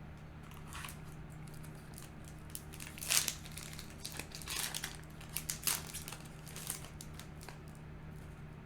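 Foil booster pack wrapper crinkling and tearing open, in a run of short irregular crinkles that is loudest about three seconds in.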